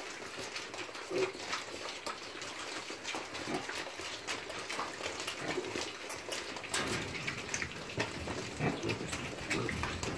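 A group of domestic piglets grunting in short calls while they feed, over a steady patter of small clicks from their snouts and trotters on the concrete floor. The grunts come more often in the second half.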